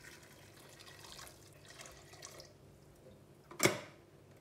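Water poured from an electric kettle into a stainless steel pot of boiled wheat, a splashing pour that fades out about two and a half seconds in. Near the end, one sharp knock.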